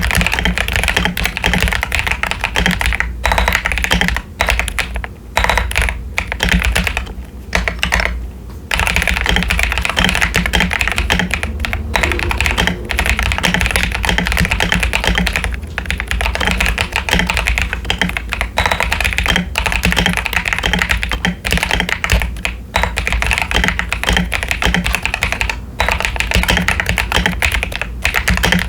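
Fast, continuous typing on a modded CIY Tester 68 hot-swap mechanical keyboard, with tape on the PCB, pre-lubed Akko Lavender Purple tactile switches and doubleshot PBT ASA-profile keycaps. A few short pauses break the keystrokes between about three and eight seconds in.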